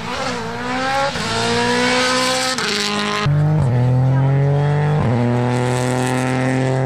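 Rally car engine accelerating hard and close, its pitch climbing and dropping back with each of about four quick upshifts.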